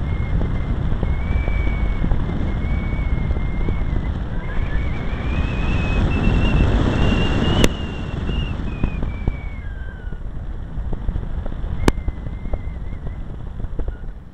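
Finwing Penguin FPV airplane in flight: heavy wind rush on the microphone with the thin whine of its electric motor and propeller, rising in pitch through the middle and falling away again. Two sharp clicks, the first followed by a drop in loudness.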